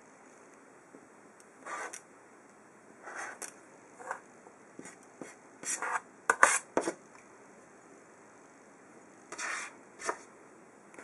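A series of short scrapes on a cutting mat: a rotary cutter drawn along an acrylic ruler to trim fabric triangles, and the ruler with its handle slid and set down between cuts. The loudest is a quick cluster of sharp strokes a little past the middle.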